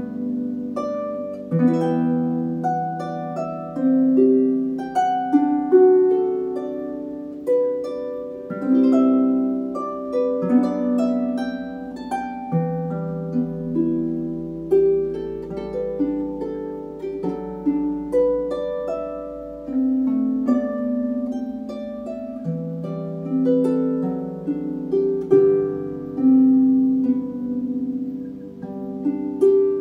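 Solo Dusty Strings FH36S lever harp playing a slow, gentle melody: plucked notes ringing out over bass notes that change every couple of seconds.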